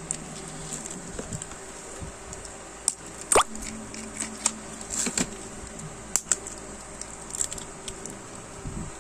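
Clear plastic blister packaging of a memory card crackling and clicking as it is handled, pried and cut open with scissors, with scattered sharp cracks, the loudest about three and a half seconds in.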